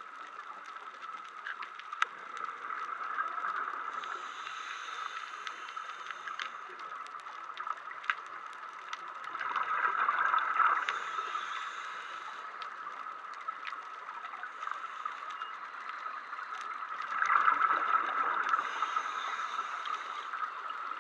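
Scuba diver's regulator breathing, picked up underwater: two louder rushes of exhaled bubbles, about ten and seventeen seconds in, with fainter hissing breaths between them. Beneath it is a steady underwater hiss with scattered small clicks.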